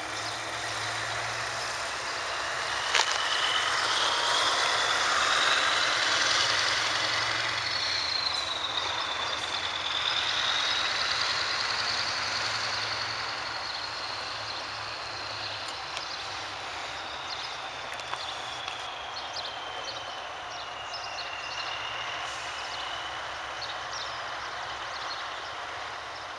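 Scania 143H-500 V8 lorry driving away. Its engine and tyre noise swells over the first few seconds and then slowly fades. A high whistle rises and falls in pitch throughout, and there is one sharp click about three seconds in.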